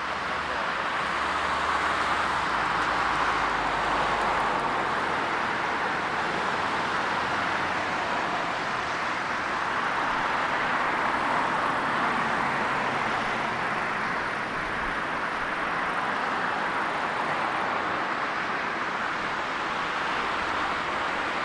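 Jet airliner engines running, a steady roar that swells up over the first couple of seconds and holds with slow rises and falls.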